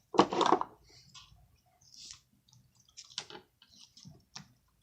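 Homemade slime being stirred with a plastic wand: wet squishing and small sticky clicks, with one louder squelch right at the start.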